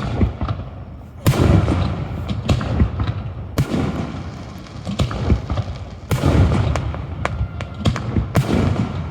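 Aerial fireworks shells bursting in quick succession: four big booms roughly two and a half seconds apart, each trailed by a second or two of noisy rumble, with many sharper single reports in between.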